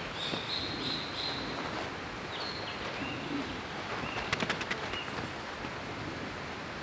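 Woodland ambience with short, high bird calls repeated through the first few seconds over a steady background hiss. About four seconds in comes a quick run of several sharp clicks.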